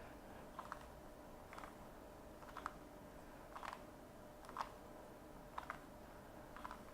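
Rubik's cube layers being turned by hand: faint plastic clicks about once a second, some in quick pairs, as a four-turn corner-insertion algorithm is repeated over and over.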